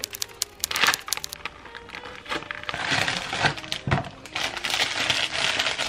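A quick run of sharp clicks in the first second or so, then clear plastic wrap crinkling and rustling as it is peeled off a dessert tub, from about two and a half seconds in.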